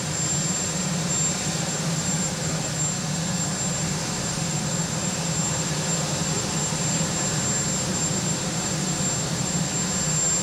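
Marine One, a Sikorsky VH-3 Sea King helicopter, running on the ground with its turbine engines and rotor. It makes a steady, loud noise with a low drone and a thin high whine.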